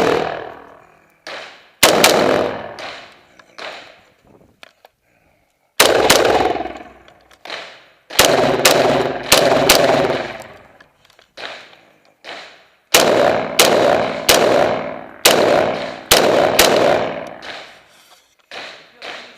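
M1 rifle firing in quick strings of two to five shots, with pauses of a few seconds between strings. Each shot is sharp and has a short echoing tail.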